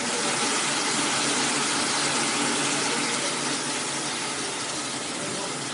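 Jewelry polishing machine running, giving a steady, even rushing hiss.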